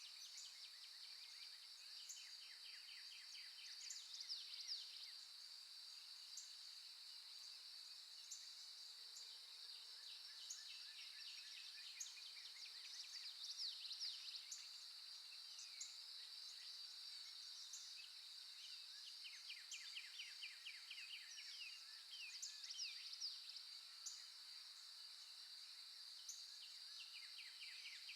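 Faint recorded nature ambience: birds singing and calling in short chirps and rapid trills over a steady high-pitched insect drone.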